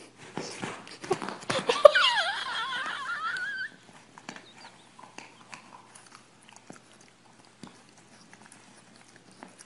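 A dog whining: a wavering high-pitched cry lasting about a second and a half, preceded by a run of clicks and knocks. Only faint scattered ticks follow.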